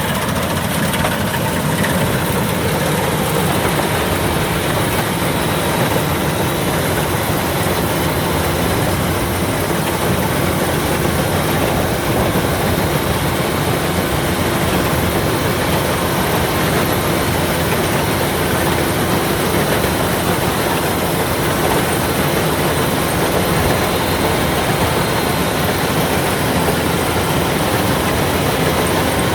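Kubota rice combine harvester running steadily in the field, its engine and machinery making a loud, unbroken noise.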